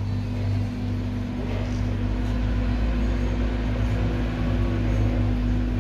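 Steady low mechanical hum, a constant drone with no change.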